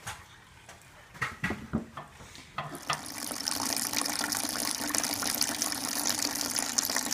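A few hollow wooden knocks, then from about three seconds in a steady splashing pour: fresh apple juice streaming from a cider press's drain spout into a plastic bucket.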